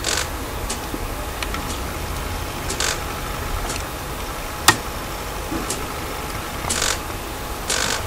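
European goldfinch cracking thistle seeds at a feeder: short, irregular dry crackles and ratchet-like clicks, about one every second, with one sharp click about halfway through.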